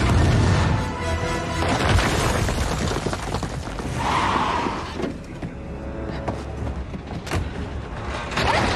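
Action-film soundtrack: dramatic score music with a heavy explosion boom at the start, a landmine blowing up an armoured vehicle. A further thud comes about two seconds in.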